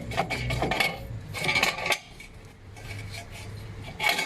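Metal clinks and clanks as a car's rear brake caliper is worked off its bracket and hub, with a louder clank near the end.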